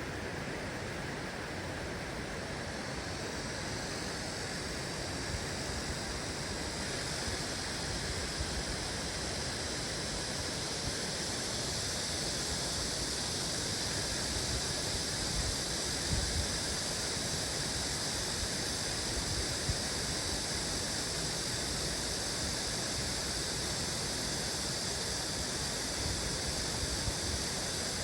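Steady rush of flowing stream water, growing a little louder and brighter after several seconds.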